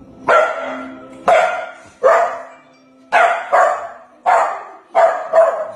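A small white-and-tan terrier barking at the television: about eight sharp, loud barks, irregularly spaced, some coming in quick pairs.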